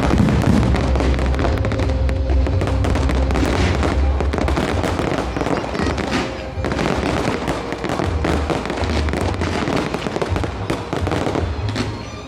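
A fireworks show: dense, continuous crackling and popping with low booms throughout, over music.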